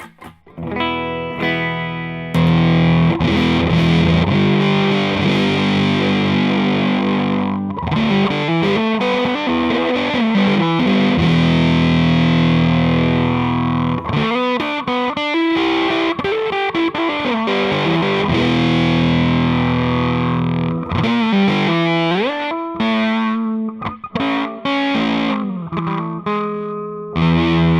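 Electric guitar with fuzz (a Strat HSS on the bridge humbucker, volume full up) through an Arcane Analog clone of the Earth Sound Research Graphic Fuzz into a Fender Hot Rod Deluxe amp. It plays held, heavily fuzzed notes and chords in several phrases with short breaks between them. As the pedal's knob is swept, a resonant filter glides up and down over the fuzz.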